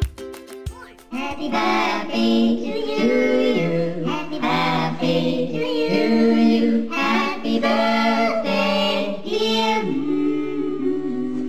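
A small group of voices singing a cappella in harmony, starting about a second in.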